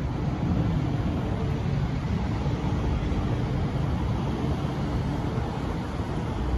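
Steady low rumble of vehicle engines, with a faint held tone in the first second or so.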